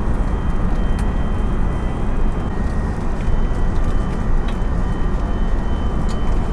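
Steady jet airliner cabin noise in flight: the low rush of air and engines, with a faint steady whine above it. A few light clicks come through, about a second in and again later.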